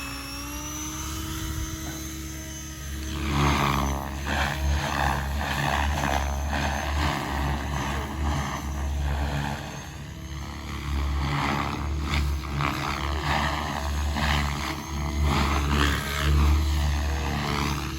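KDS A5 electric RC helicopter, driven by a brushless motor, in flight. It begins with a steady whine from the motor and rotor. From about three seconds in, loud pulsing rotor-blade noise rises and falls repeatedly as the heavily loaded blades change pitch in 3D maneuvers.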